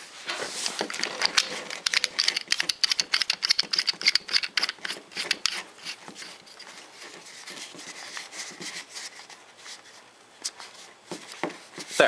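Rapid small clicks and scraping as a MIG gun's end is screwed by hand onto the threaded brass piece of a Euro connector, metal threads and plastic rubbing and ticking. The clicking is densest in the first half and thins out after.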